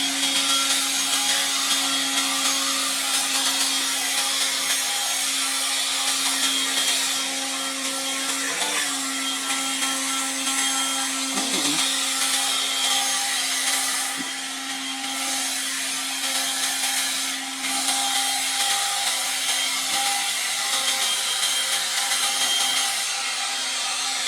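Leaf blower running steadily: a constant motor whine over a loud rush of air.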